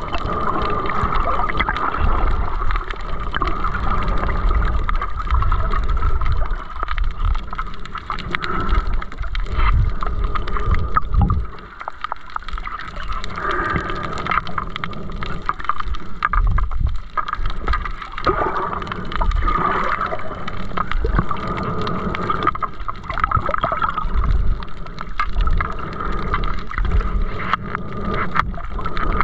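Muffled rushing and rumbling of water heard underwater through a camera housing as a snorkeler swims, with a brief lull about twelve seconds in.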